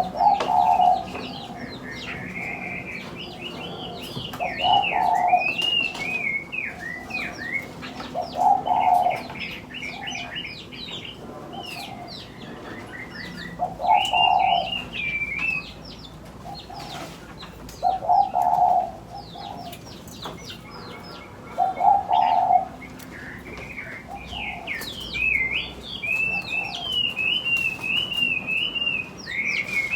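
Aviary birds: a dove cooing, one low call about every four seconds, under high chirping and warbling songbirds that sing in runs of a few seconds.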